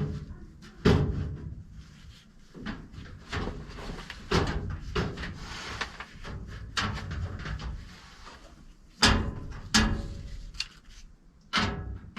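Irregular knocks, clicks and clunks of furnace parts being handled as the flame sensor and burner-area parts are put back in place, with a few louder knocks spread through.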